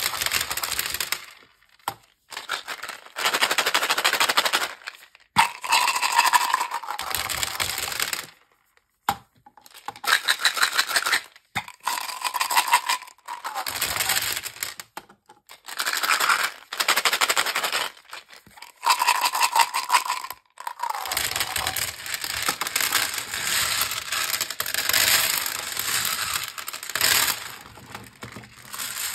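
Mentos gum pellets pouring out of plastic bottles and clattering onto a hard tabletop in repeated rattling bursts, each a second or few long with short pauses between. In the last third a longer stretch of clatter runs on as the scattered pellets are pushed around by hand.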